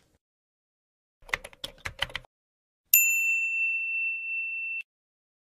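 Edited-in sound effects: a quick run of about eight clicks like typing, then a single bright ding that holds steady for about two seconds and cuts off sharply.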